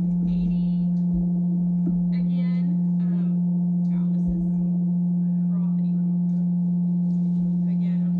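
Vevor electric cream separator running at speed: a loud, steady motor hum with a higher overtone above it, ready for milk to be poured in. There are a few light knocks.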